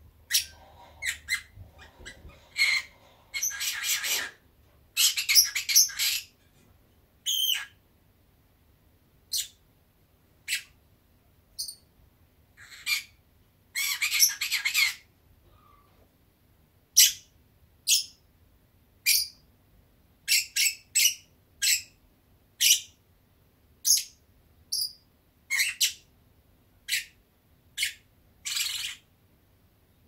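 Lovebird chirping: a long string of short, sharp chirps with a few longer, harsher chattering phrases about three, five, fourteen and twenty-eight seconds in.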